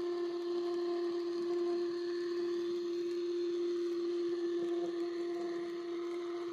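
Piko BR 62 TT-scale model locomotive running with a loud, steady whine from its drive. The owner hears this as massive noise that appeared after the running-in phase.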